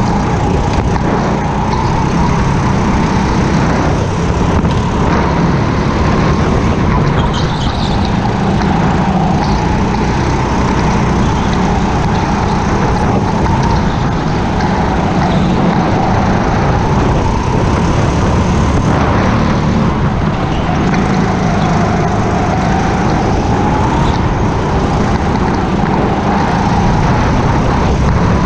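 Go-kart running at racing speed, a loud continuous motor note whose pitch slowly rises and falls several times as it speeds up and slows.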